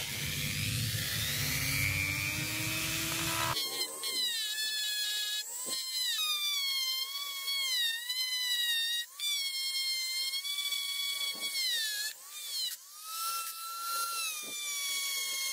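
Handheld rotary tool with a sanding drum, whining at high speed against a small metal part, its pitch dipping and wavering as it is pressed on and eased off. For about the first three and a half seconds a loud rushing noise with a low hum comes first, then cuts off abruptly.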